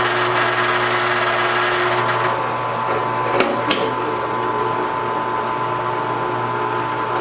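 Shop Fox W1848 floor drill press running in its oscillating spindle-sander mode: a steady motor and belt-drive hum, with two sharp clicks a little after three seconds in.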